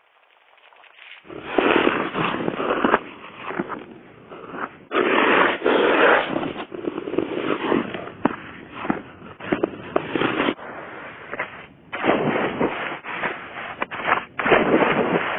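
Ice skate blades scraping across natural lake ice in a run of strokes, in loud irregular surges broken by sharp clicks.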